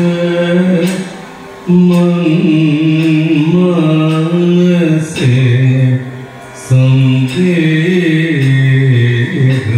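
Kathakali padam sung by male singers in long, slowly gliding held notes, with short breaks for breath. Metal time-keeping instruments, a small hand cymbal (ilathalam) and a gong struck with a stick (chengila), sound a few sharp strokes along with the singing.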